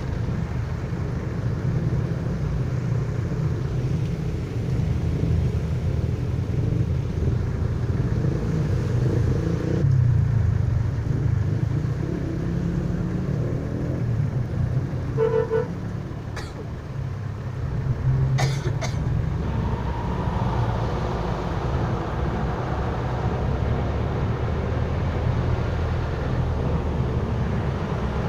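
Jeepney engine and road rumble heard from inside, over a steady hiss of heavy rain. A vehicle horn toots briefly about halfway through, and a couple of sharp clicks or knocks follow a few seconds later.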